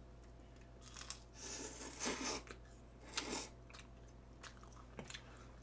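Jjamppong noodles being slurped and chewed: two or three hissy sucking slurps, each a second or less, with quiet chewing and small clicks between.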